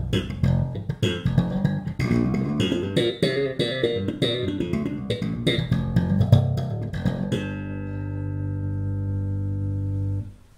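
Six-string electric bass (FL Custom Master Custom 003, Aero K-series pickups) played slap style: a fast run of sharp, percussive slapped and popped notes. About seven seconds in, a held note rings out for about three seconds and is then muted abruptly.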